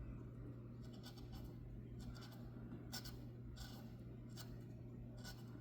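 Scrubbing and scraping at the corroded battery terminal of a flow meter: a series of short scratchy strokes, roughly one a second, over a steady low hum.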